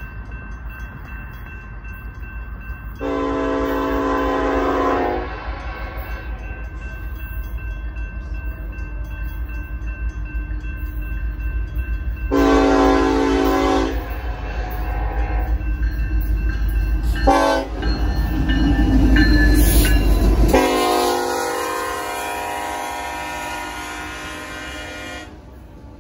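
Union Pacific SD70AH diesel locomotive's chime horn sounding the grade-crossing signal, long, long, short, long, the last blast held about five seconds. A low rumble from the approaching train builds beneath it, and crossing bells ring steadily throughout.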